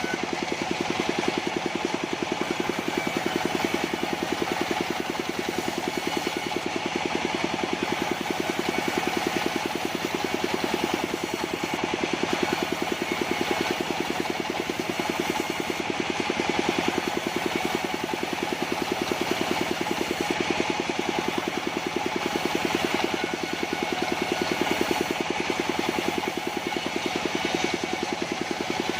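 Engine of a mobile sawmill running steadily, with slight swells in level every few seconds.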